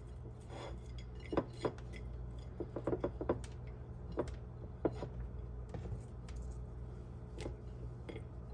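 Scattered light clinks and taps of kitchenware being handled, a quick cluster of them about three seconds in, over a steady low hum.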